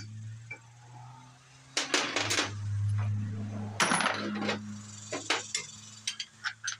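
A cordless power tool's motor whirring as it spins off a timing-gear bolt on a small-block V8, with sharp metallic clinks of the bolt and tools around two seconds in and again about four seconds in.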